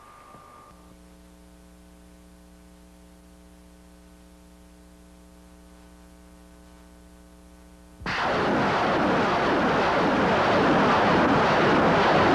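A high steady tone cuts off just under a second in, leaving a quiet low hum with a stack of overtones. About eight seconds in, loud battle noise of gunfire and artillery explosions breaks in suddenly and keeps going.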